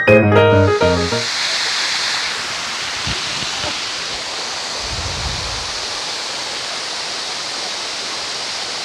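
Steady rushing roar of the Rani Duduma waterfall, after background music fades out about a second in.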